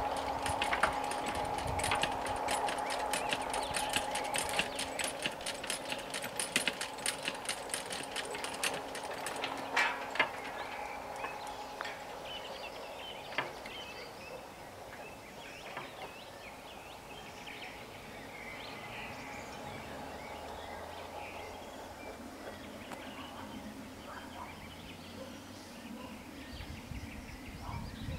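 Level crossing warning bell ringing rapidly over a steady tone, then stopping about nine seconds in, with a few knocks around ten seconds as the barriers are raised after the train has passed. After that, faint birdsong.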